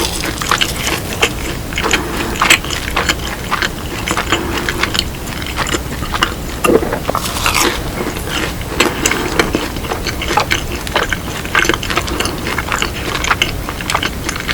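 Close-miked chewing of fried cheese balls: a steady run of irregular wet clicks and crunchy crackles from the mouth.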